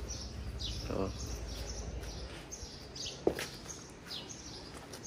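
Small birds chirping in short, scattered high calls, with a brief voice sound about a second in and a short sharp knock a little after three seconds.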